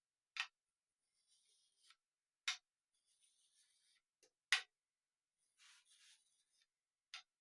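Metal fret-checking tool clicking against a guitar's frets four times, about two seconds apart, with faint scraping as it slides along the neck between clicks, checking the frets for high spots.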